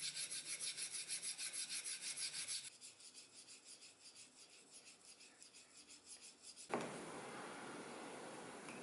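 A steel knife blade stroked back and forth on a sharpening stone, about four rasping strokes a second, loud at first and then quieter on a second stone. Near the end it gives way abruptly to a steady scraping hiss of the blade skiving the edge of leather.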